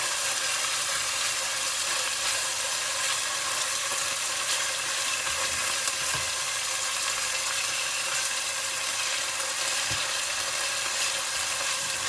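Raw chicken pieces frying in hot oil, a steady sizzle, while being stirred with a silicone spatula, with a couple of soft knocks along the way.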